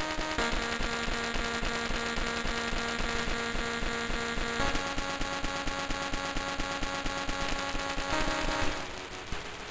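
Teenage Engineering OP-1 Field synthesizer playing held, sustained chords that change about every four seconds, over a grainy, crackling texture. The sound thins out near the end.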